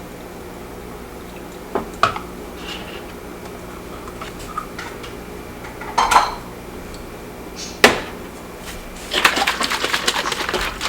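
Dishes and cutlery clinking and knocking: a few separate knocks, then a quick run of clinks near the end, over a faint steady hum.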